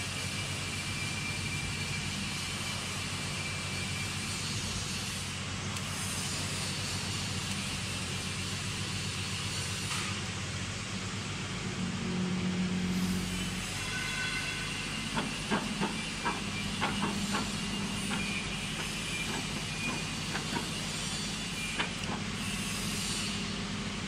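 Steady machine hum with a hiss, and partway through a run of light metallic clicks and taps as a hex key works the clamping screws of a numbering head on the press shaft.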